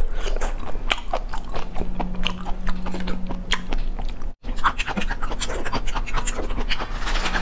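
Close-miked eating of raw marinated tiger prawn: many quick wet clicks, smacks and sucking sounds of the mouth and fingers, broken by a brief gap about four seconds in.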